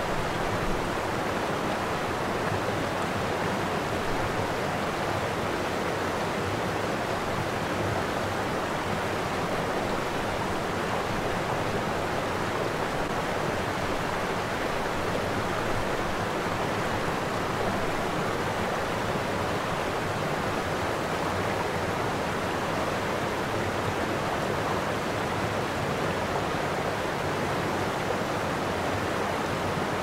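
Water of Niagara's Horseshoe Falls rushing over the brink: a steady, unbroken rush that does not change in loudness.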